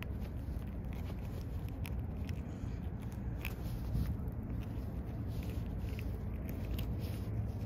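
Small clicks and scrapes of fingers working a swallowed hook out of a just-caught mackerel, over a steady low rumble; the sharpest click comes about four seconds in.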